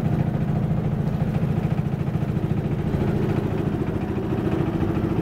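Engine of a wooden river passenger boat running steadily under way, an even rapid throb.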